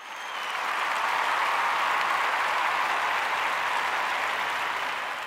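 Crowd applause, swelling in over about a second and then holding steady.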